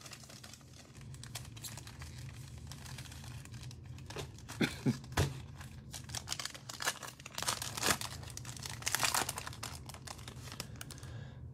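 Foil wrapper of a Panini Prizm basketball card pack being torn open and crinkled by hand: irregular crackling that gets louder about halfway through and again in the second half.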